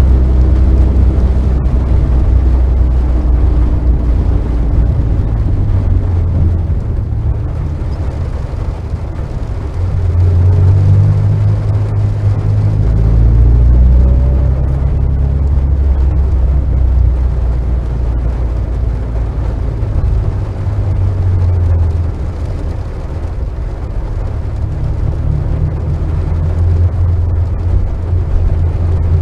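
Car engine running at fairly low revs, heard from inside the car. Its low drone steps up and down in pitch as the throttle and gears change, over a steady wash of road noise.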